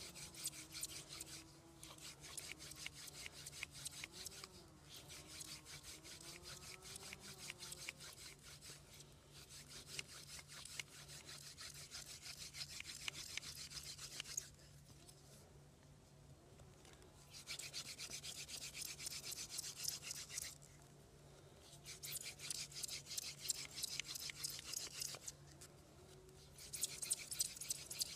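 Wooden spindle of a hand drill spun back and forth between the palms, grinding into a wooden hearth board to make fire by friction. It is a fast, rough rubbing in bouts of several seconds, with short pauses as the hands go back to the top of the spindle.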